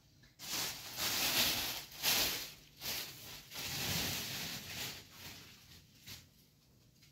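Rustling of things being handled, in several bursts over about five seconds, with a few light knocks among them, then fading.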